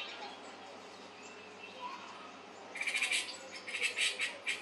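Birds chirping from a bird video playing on a television. About three seconds in, a run of rapid, harsh chattering calls starts and repeats.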